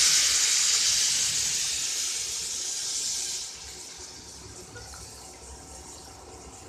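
Tamarind water poured into a pan of shallots and sundakkai vathal frying in hot oil, hissing and sizzling loudly, then dropping to a quieter sizzle about three and a half seconds in.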